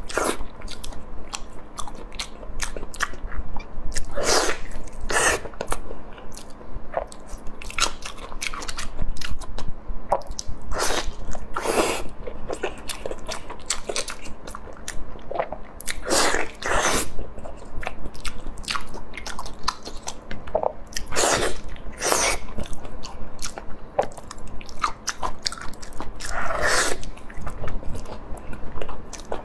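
Close-miked eating: a person sucking on, biting into and chewing glossy braised pieces, with many small wet mouth clicks and, every few seconds, a louder, longer wet suck, about nine in all.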